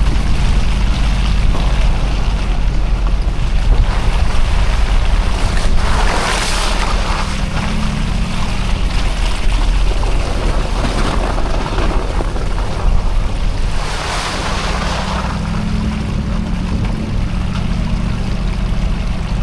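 Lexus GX470 with its 4.7-litre V8 and Nitto Mud Grappler tyres driving slowly along a trail, a steady low drone of engine, drivetrain and tyre noise. A rushing noise swells about six seconds in and again about fourteen seconds in.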